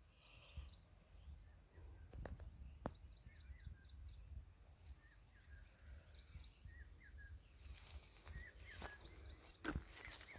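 Faint birdsong: several short runs of quick, high chirps, with lower chirps in between. A few sharp clicks are mixed in.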